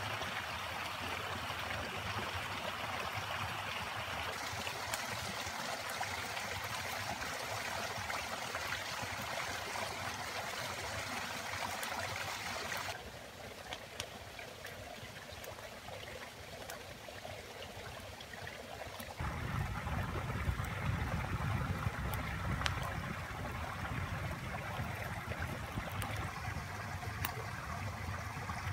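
Steady rush of flowing stream water. It drops and changes abruptly about 13 seconds in, then turns deeper and fuller about 19 seconds in.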